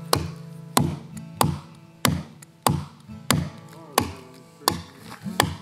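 An axe chopping into the end of a wooden log, sharp even blows about one every two-thirds of a second, over background guitar music.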